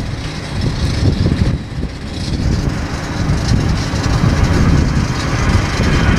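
Departing jet airliner's engines at takeoff power: a loud, rough rumble that grows louder through the second half as the plane lifts off and climbs out.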